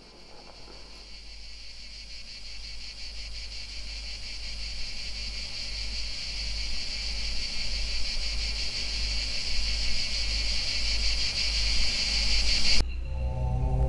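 A dense, high chorus of buzzing insects that swells steadily louder, then cuts off abruptly near the end as music begins.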